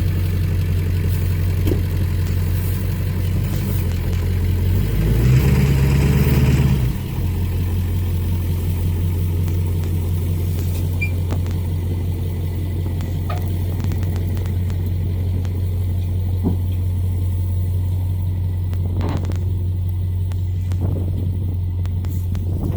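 7.3-litre turbo-diesel V8 running steadily under way, with a brief rise in engine speed about five seconds in that falls back after a couple of seconds.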